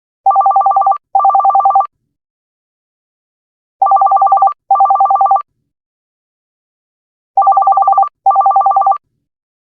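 Electronic office telephone ringtone giving a double 'tring tring' ring three times, about three and a half seconds apart. Each ring is a fast, pulsing two-tone trill.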